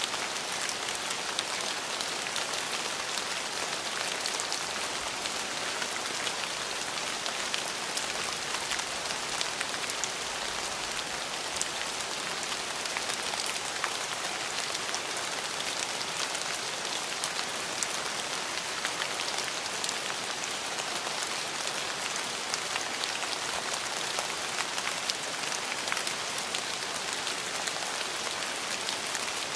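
Steady rain falling, a dense patter of drops hitting a surface, with sharp individual drop ticks throughout.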